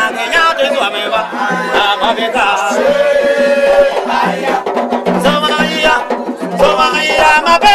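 Traditional Yacouba (Dan) music from western Côte d'Ivoire: singing over percussion, with one long held sung note about three seconds in.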